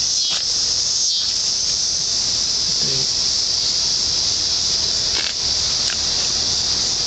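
Loud, steady chorus of cicadas, a high continuous buzz that does not let up.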